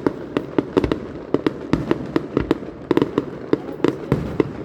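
Fireworks going off in a rapid, uneven string of sharp pops and bangs, several a second.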